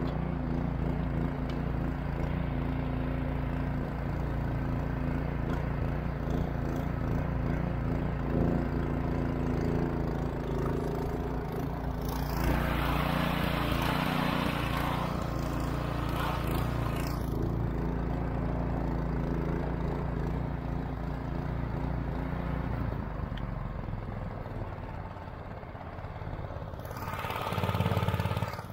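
Predator 212 single-cylinder four-stroke engine on a long-tail mud motor running steadily at speed, pushing a heavily loaded small boat. Two bursts of hissing rush rise over it, one about halfway through and one near the end.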